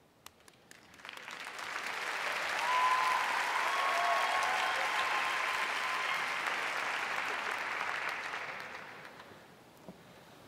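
Theatre audience applauding: a few scattered claps, then a full round of applause that swells about a second in and fades away near the end.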